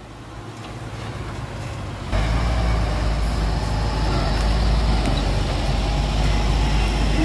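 Engine of a Hyundai 5-ton dump truck laden with soil, running as the truck drives away: a steady low rumble that fades in and then jumps louder about two seconds in.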